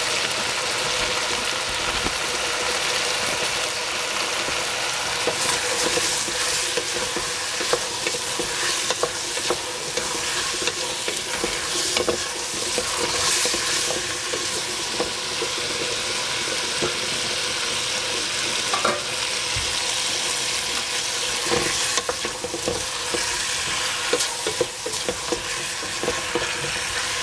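Food sizzling steadily as it stir-fries in a hot pan, with irregular clacks and scrapes of a spatula stirring it.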